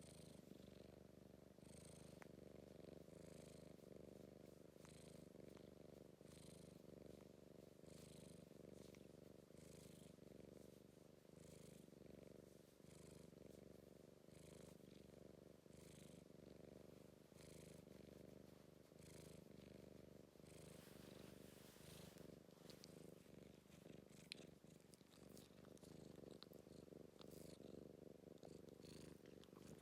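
British Blue shorthair cat purring steadily and quietly, the purr swelling with each breath about once a second.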